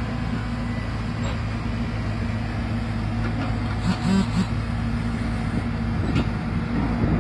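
Excavator's diesel engine running steadily at a constant pitch, with a few brief sharp knocks over it.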